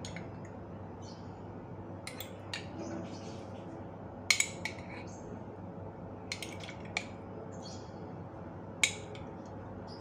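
A spoon scooping mayonnaise out of a jar into a bowl: scattered sharp clicks and taps of the spoon against the jar and the bowl's rim, with soft scraping between them.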